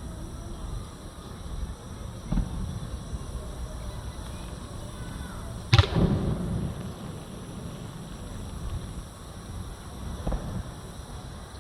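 Fireworks shells bursting some distance away: three booms, the loudest about halfway through and followed by a rolling rumble, with fainter ones a couple of seconds in and near the end.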